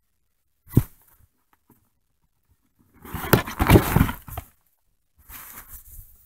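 Handling noise close to the microphone: a single thump about a second in, then a couple of seconds of rustling with sharp clicks, and a quieter rustle near the end, as the camera and the shrink-wrapped model kit box are moved about.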